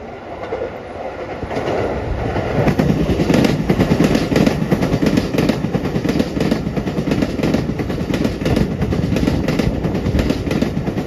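Shōnan-Shinjuku Line electric commuter train passing close. It grows loud about two seconds in, then its wheels clatter over the rail joints in a fast, continuous run of clicks.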